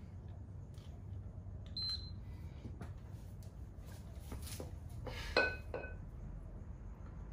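Two 16 kg kettlebells clinking together as they are lifted: a light ringing clink about two seconds in, then a louder metallic clank with a short ring about five and a half seconds in as they are cleaned up to the chest. A steady low hum runs underneath.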